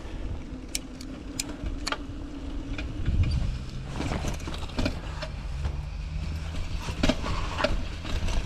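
Mountain bike rolling along, with tyre noise, scattered clicks and rattles from the bike, and a steady low hum that drops in pitch about three seconds in.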